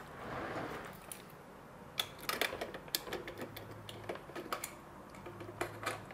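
Irregular metal clicks and taps as a cut-down lock cylinder is pushed into a door lock's mortise case, after a short rubbing sound at the start.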